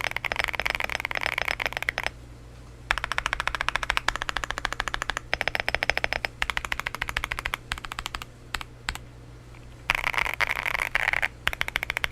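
Typing on an M1 V3 mechanical keyboard fitted with Akko V3 Creamy Purple Pro medium tactile switches: quick runs of keystrokes broken by short pauses.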